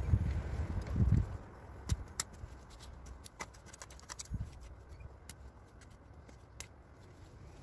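Hand trowel digging into loose garden soil, with soft scraping and scattered light clicks; two dull low thumps in the first second or so are the loudest sounds.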